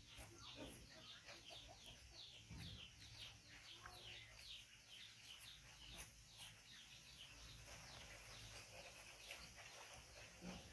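Faint, rapid, high-pitched chirping from birds in the background: a run of short calls that each drop in pitch, about three or four a second, going on without a break.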